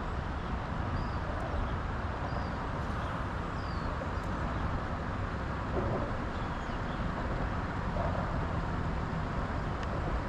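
Steady rushing noise of a fishing boat out on the river, with a few faint high chirps scattered through it.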